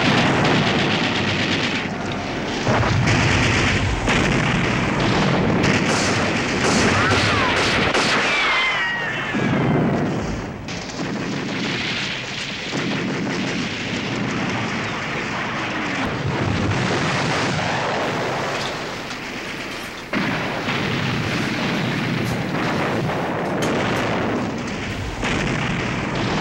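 Battle sound effects: gunfire and explosions over a dense, continuous noise, with a cluster of sharp strikes about six to eight seconds in.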